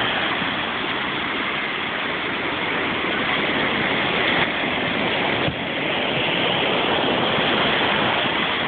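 Ocean surf washing onto the beach, a steady rushing noise.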